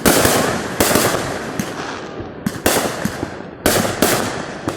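Aerial fireworks shells bursting one after another, about one bang a second, each loud bang followed by a fading echo.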